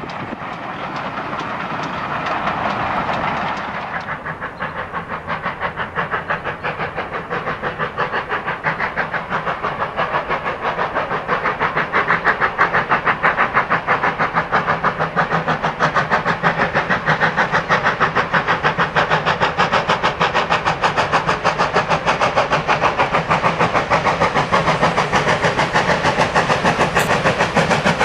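GWR 'Dukedog' 4-4-0 steam locomotive working hard with a train, its chimney exhaust beats fast and even, growing louder as it approaches.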